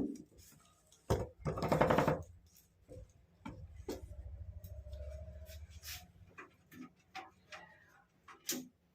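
Handling noise from a desktop PC case being unboxed: scattered clicks and knocks with a brief rustle a little after the first second.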